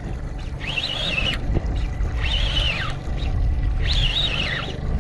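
Boat motor running under way with wind rush. Over it, a fishing reel is cranked in short spells as a hooked striped bass is reeled in, giving a wavering high whine three times, about every second and a half.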